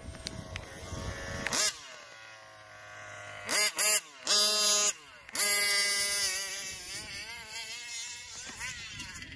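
Small two-stroke engine of a 1/5-scale gas RC car revving in several sharp blips: the pitch jumps up, holds, then falls back. From about the middle on, it runs with a wavering pitch.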